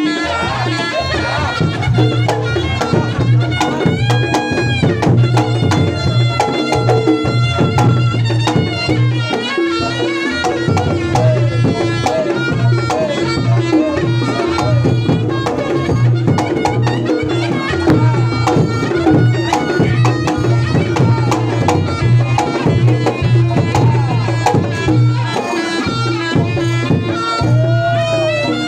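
Reog Ponorogo gamelan playing: a reedy slompret shawm carries the melody over kendang drum strokes and a steady low tone underneath.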